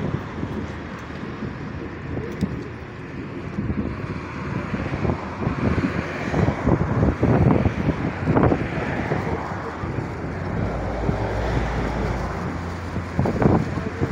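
Wind gusting on the phone's microphone over steady road traffic noise.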